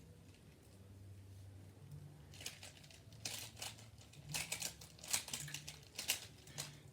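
Plastic Rubik's cube being twisted and pried by hand to pop its pieces out: irregular creaking, clicking plastic scrapes starting about two seconds in.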